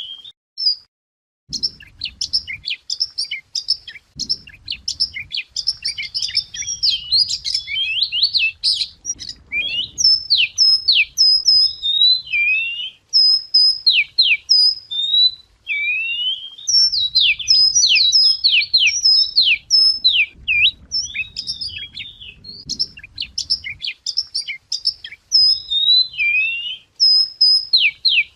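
A chìa vôi songbird singing a long, varied song of clear whistled notes, quick up-and-down sweeps and looping phrases, almost without a break after a short pause near the start.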